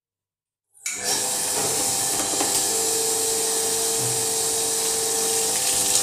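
Water gushing into the drum of an LG TurboDrum top-loading washing machine through its inlet as the machine fills. It starts suddenly about a second in and runs on steadily, with a steady tone under it in the middle. The flow is strong and full because the clogged inlet filter has just been cleaned.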